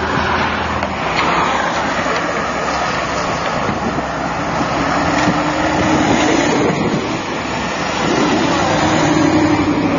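Mercedes-Benz SLS AMG's V8 engine running as the car pulls slowly away, its note swelling a little about five seconds in and again near the end, over a steady noisy background.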